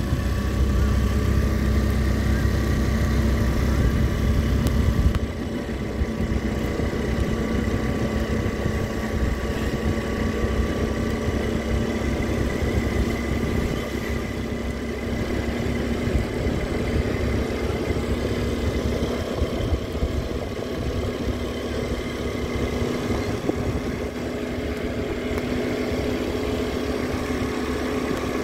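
Motorbike engine running at a steady cruise with road and wind noise, its note holding even and rising slightly near the end. A heavy low rumble sits under it for the first five seconds, then drops away.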